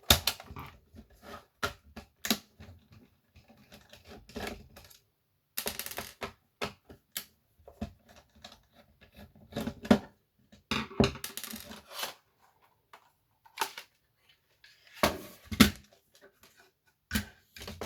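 Irregular plastic clicks, knocks and short scrapes as a Dictaphone tape dictation machine is handled and taken apart.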